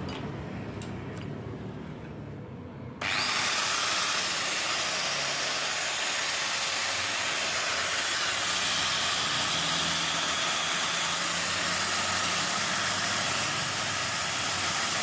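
Makita 9553 angle grinder switched on about three seconds in, spinning up quickly and then running steadily with no disc fitted. The motor is on a test run with its new armature and stator. A few faint handling clicks come before it starts.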